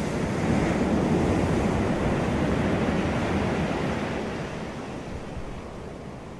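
Ocean waves breaking on a beach: a loud rush of surf in the first few seconds that slowly dies away as the wave washes out.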